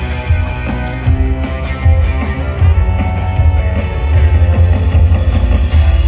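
Live rock band playing a driving instrumental passage: a steady, pulsing bass line under drum-kit hits and sustained guitar tones.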